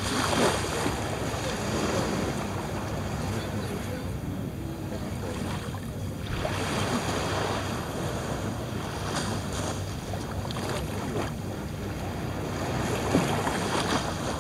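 Small waves breaking and washing up a sandy beach, the wash swelling every few seconds, over a steady low rumble of wind on the microphone.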